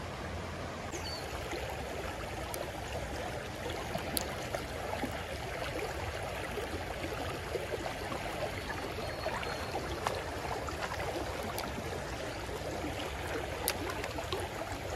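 Shallow creek water running steadily over rocks in riffles, with a few faint ticks.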